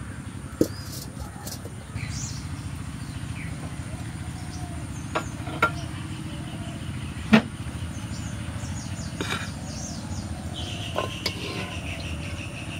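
Wood fire crackling in a clay hearth under an iron wok, with a few sharp pops and knocks, the loudest about seven seconds in. High chirps and a trill sound over it.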